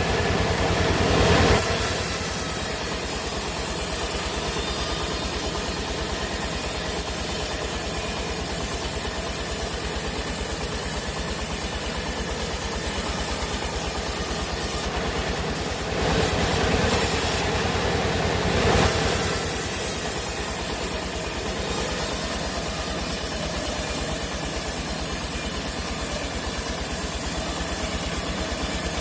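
Sawmill machinery running steadily with an even low pulse, rising louder and noisier twice: briefly at the start, and again for about three seconds just past halfway.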